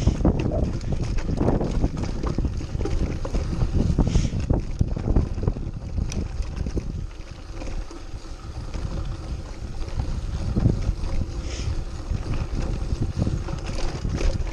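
Wind rumbling on the microphone of a helmet-mounted camera as a mountain bike rolls down a rocky dirt trail, with the tyres crunching over loose stones and frequent sharp knocks and rattles from the bike jolting over rocks.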